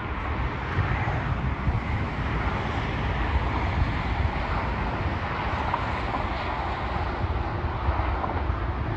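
Steady outdoor noise: the low rumble of wind buffeting the microphone over the even rush of distant road traffic.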